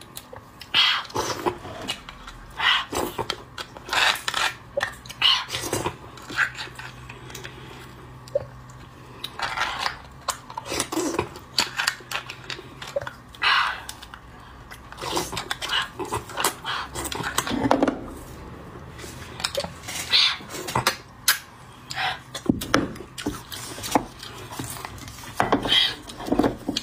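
A metal spoon scraping and clinking against split roasted beef bones as bone marrow is scooped out, between wet chewing and slurping sounds of eating, in irregular short bursts.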